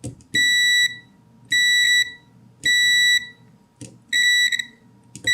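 The Tilswall FY8233X multimeter's continuity buzzer beeps each time the test probes are touched across a connection. There are about five high-pitched beeps, each about half a second long and roughly one a second apart, some with a small click of the probe tip just before.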